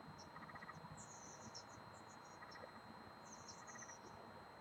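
Near silence: faint high chirping, with short pulsed trills every second and a half to two seconds, over a faint steady high tone.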